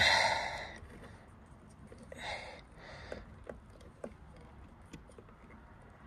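A person's heavy exhale, a loud sigh, then two quieter breaths about two and three seconds later, with faint scattered clicks and taps between them.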